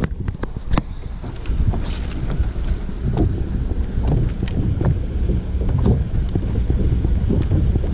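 Wind buffeting the microphone over water lapping against a small boat's hull, with scattered sharp clicks and knocks.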